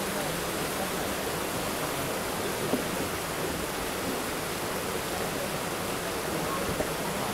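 Shallow mountain river rushing steadily over its rocky bed, with water spilling from an outlet in the stone channel wall.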